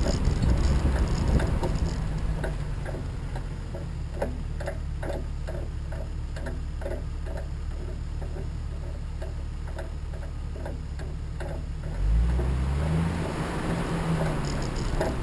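A vehicle engine running with a low steady hum, under a fast regular ticking of about three ticks a second. Near the end the ticking stops and the engine's pitch rises and then falls.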